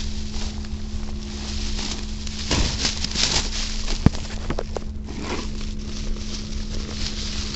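Footsteps on pavement with plastic grocery bags rustling and jostling as they are carried, and a sharp knock about four seconds in, over a steady low hum.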